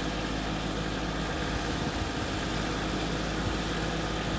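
Compact loader tractor's engine running steadily at an even pitch, with no revving.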